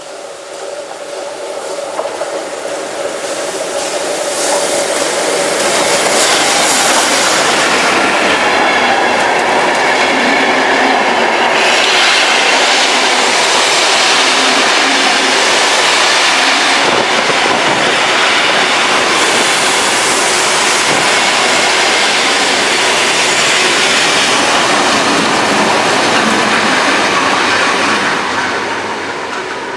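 Hr1 steam locomotive 1009 running past close by with its train of vintage passenger carriages. The wheels clatter over the rails as the carriages roll by. The sound builds over the first few seconds as the locomotive comes up, holds loud and steady while the carriages pass, and fades near the end as the last wagon goes by.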